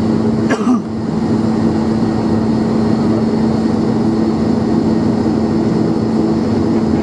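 Cabin sound of an ATR 42-512 turboprop's Pratt & Whitney PW127E engines and propellers running, a steady drone with a strong low hum. A brief sharp noise cuts in about half a second in.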